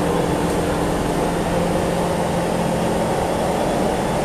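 SMRT C651 metro train running at steady speed, heard from inside the car: an even rumble of wheels on rail with a steady hum holding a few low tones.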